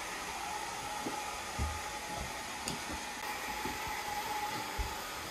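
Steady whir of an electric fan-driven appliance, such as a hair dryer or ventilation fan, with a faint high whine running through it. A few soft thumps, about five, sound underneath.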